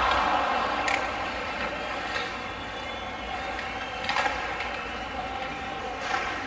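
Ice hockey rink during play: a steady background din with a few short scraping sounds, about a second in, around four seconds and near the end.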